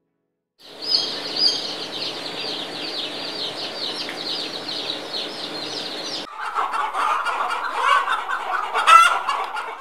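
A crowd of Kadaknath chicks peeping, many short high cheeps at once; about six seconds in it changes abruptly to adult Kadaknath chickens clucking, with one louder call near the end.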